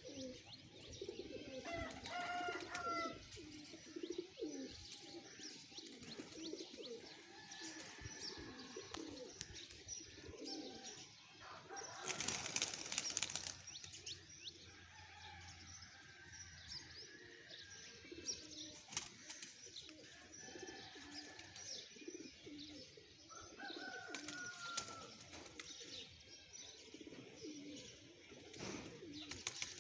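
Flock of domestic pigeons cooing at a loft, with a burst of wing flapping about twelve seconds in.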